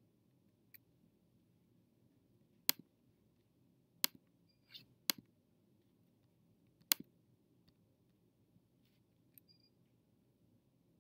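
A few sharp computer clicks, four of them loud and spaced a second or two apart, from about three to seven seconds in, over faint low room hum.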